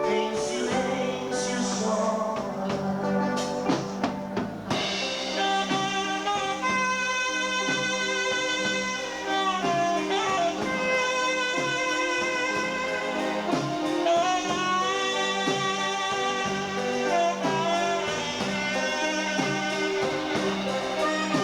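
Live dance band playing a slow romantic song with drum kit and a held melodic lead; drum and cymbal hits stand out in the first few seconds, after which smoother sustained lines carry the tune.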